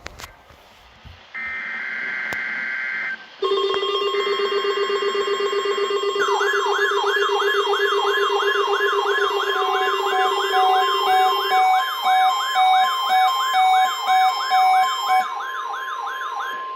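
NOAA weather radio receivers alarming to the National Weather Service 1050 Hz warning alarm tone test. Short bursts of buzzy digital data tones come first. A loud steady tone follows with a low buzzer under it, then a fast rising-and-falling siren warble, with pulsing beeps near the end.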